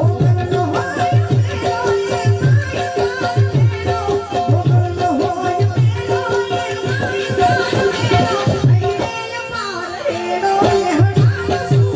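Gujarati folk devotional music played live: a steady, regular drum beat under held drone tones and a wavering melodic line. The music thins briefly a little past the middle, then the beat resumes.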